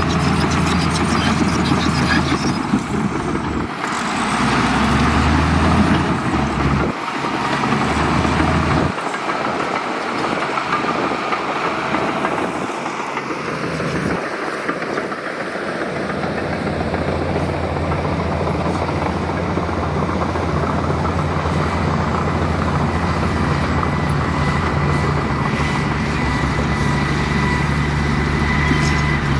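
Heavy diesel construction machinery running steadily at work. Its low engine hum thins out for several seconds in the middle, then settles back to a steady drone.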